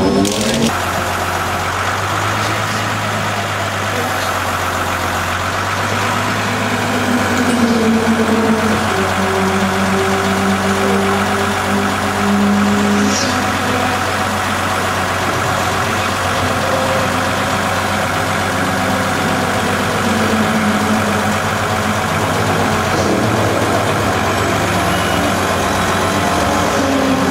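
Recovery truck's engine idling steadily while its hydraulic HIAB crane lifts a car. About seven seconds in a higher tone comes in, climbs and holds for about five seconds before stopping.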